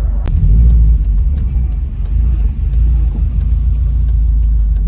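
Subaru Impreza GC8 on the move, heard inside the cabin: steady low engine and road rumble, with one sharp click about a third of a second in.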